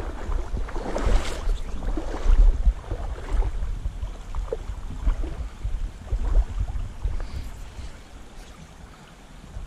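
Shallow river water swishing and splashing in irregular surges, with wind rumbling on the microphone.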